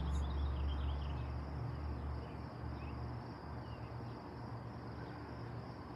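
A steady, high-pitched insect chorus over a low rumble that fades out about two seconds in.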